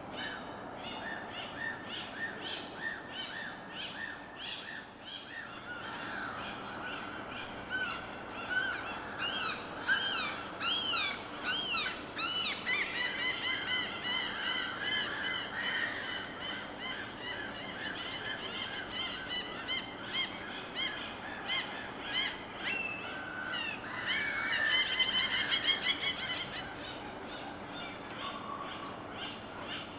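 Many birds calling over one another in rapid, repeated notes, over a steady low hiss. The calling gets busier about a quarter of the way in and is loudest in a dense burst of calls a little past the middle.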